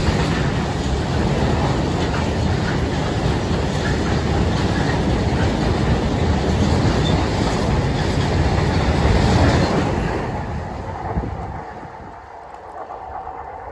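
Freight train hauled by a Class 66 diesel locomotive rolling steadily past the crossing. The rumble drops away from about ten seconds in as the train clears.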